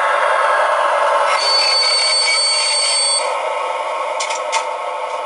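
Diesel engine sound from the O gauge BR360 model's DCC sound decoder, played through its small on-board loudspeaker and running steadily. A thin high whistling tone sits over it from about one and a half to three seconds in, and a few sharp clicks come near the end.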